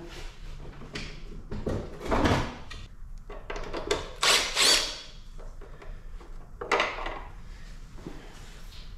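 Cordless drill-driver backing out a seat screw in short runs, with knocks and clatter from the tool being handled. There is a thump about two seconds in, the main run of the driver comes about four seconds in, and there is another short burst near seven seconds.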